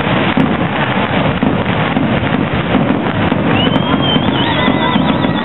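Fireworks display going off over a large crowd: a dense, steady din of crowd chatter mixed with bursting shells. A high whistle rises about three and a half seconds in and then warbles.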